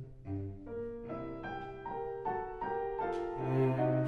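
Instrumental background music: piano with bowed strings, a melody of held notes changing every half second or so.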